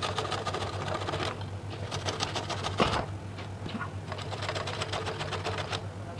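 Garlic cloves being grated on a stainless steel box grater: quick rasping strokes in two runs, with a lull of about two seconds between them broken by one louder scrape.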